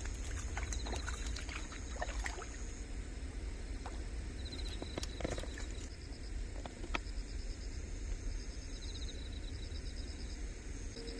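Outdoor waterside ambience: a steady low rumble with scattered small clicks and taps, and faint high-pitched pulsed chirping that comes and goes.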